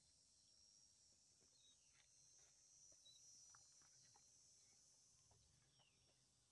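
Near silence outdoors, with a faint steady high-pitched insect chorus and a few faint scattered ticks.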